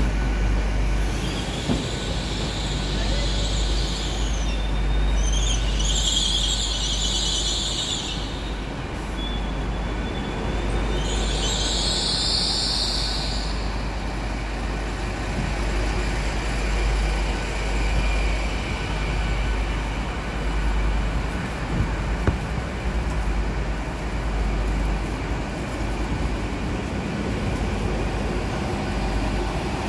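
LNER Class 800 'Azuma' train rolling slowly through a station, a steady low rumble of wheels on the rails throughout. Three high squealing hisses come in the first half, each two to three seconds long.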